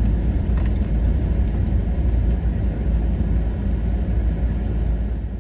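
Steady low rumble of a car being driven, engine and road noise heard from inside the vehicle, cutting off abruptly at the very end.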